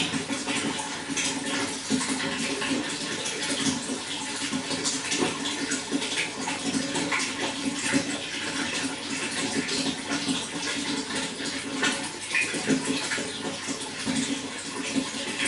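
Running water flowing steadily, with a constant patter of small splashes.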